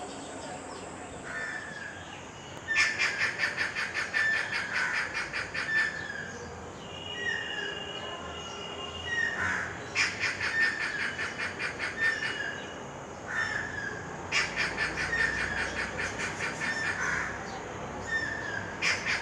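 Stork-billed kingfisher giving its loud cackling call, four bouts of rapid repeated notes each a few seconds long. Between the bouts come shorter slurred call notes and a brief held whistle.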